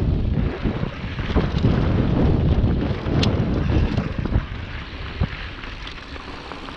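Wind rushing over the microphone while a mountain bike descends loose, rocky gravel, its tyres crunching and the bike rattling over bumps with scattered knocks and one sharp click about three seconds in. The rush eases off over the second half.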